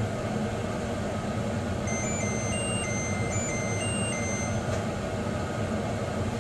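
Steady whirring hum, with a short electronic tune of high beeps stepping between three pitches from about two seconds in until shortly before five seconds.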